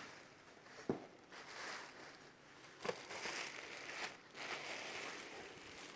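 Dresses being handled: soft rustling and crinkling of fabric and tags, with a couple of light knocks.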